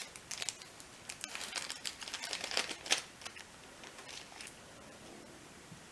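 Hands handling small hard parts: a quick run of light clicks and taps with some crinkly rustling, busy for about three seconds, then a few last clicks before it goes quiet.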